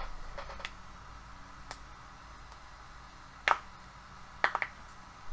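A few sharp clicks of a computer mouse button: a faint one early, a louder one about three and a half seconds in, then a quick pair about a second later, over a faint low hum.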